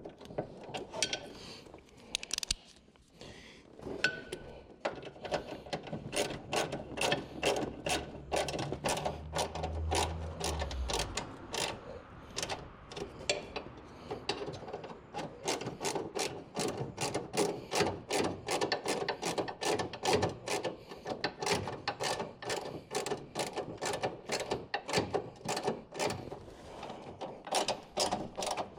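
Hand socket ratchet clicking in a steady rhythm, about three clicks a second, as a bolt is run in or out. A low hum sounds for a few seconds in the first half.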